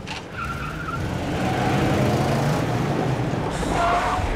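Car engine running with tyres skidding.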